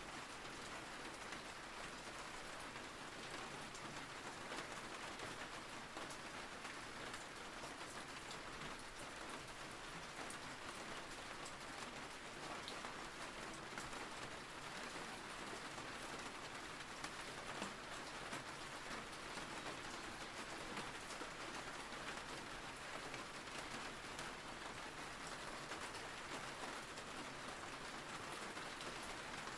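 Steady rain falling on a surface, an even hiss with scattered patters of individual drops.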